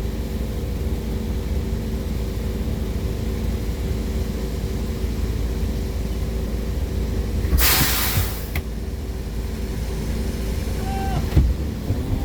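A steady engine drone with a loud hiss lasting about a second, roughly eight seconds in.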